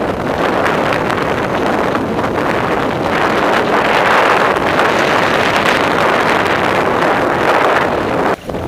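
Strong wind buffeting the microphone, a steady rushing noise that cuts out briefly near the end.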